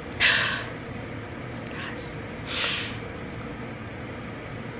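A crying woman sniffling: two short, noisy intakes of breath, one just after the start and another about two and a half seconds in, over a low steady room hum.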